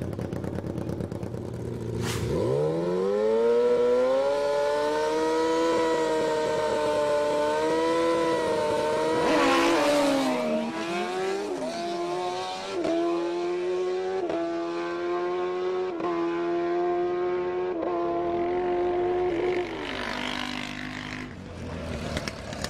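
Drag-racing motorcycle engines. One bike sits at a low steady run, then after a sharp click about two seconds in its engine note climbs steeply and holds high under full throttle. After a burst of noise about ten seconds in, an engine note runs on in a series of small steps before stopping a few seconds before the end.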